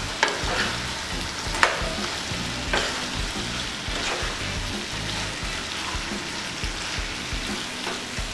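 Chicken pieces in onion-spice masala sizzling in oil in a nonstick kadhai while being stirred with a spatula. There are a few sharp scrapes of the spatula against the pan in the first half.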